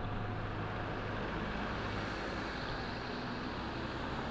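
A motor vehicle's engine running with road noise: a steady low hum under a wash of noise that swells a little in the middle and eases near the end.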